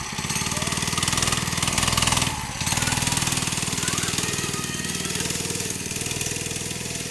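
Harbor Freight 2.5 hp 79cc single-cylinder four-stroke engine on a homemade go-kart running under load as the kart pulls away. It revs up in the first couple of seconds, dips briefly, then runs steadily.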